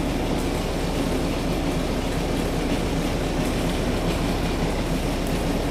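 Van de Graaff generator running, its motor and belt making a steady mechanical hum while the dome charges up.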